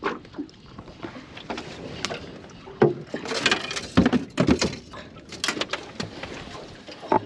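Irregular knocks and clatter of gear being handled in a small aluminium fishing boat, a few sharper bumps among them.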